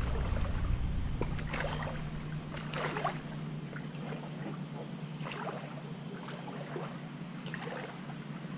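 Outdoor wind noise on a small action camera's microphone, with a few soft scuffs and rustles scattered through it.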